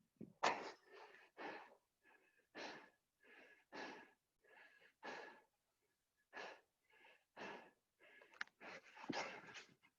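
Hard, rapid breathing of a person doing burpees: short, separate puffs and gasps, about two a second, with a brief pause about halfway through.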